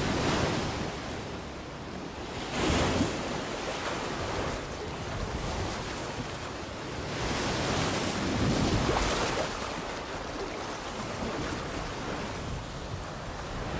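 Ocean surf washing in and out over a beach, swelling louder with each wave, with wind.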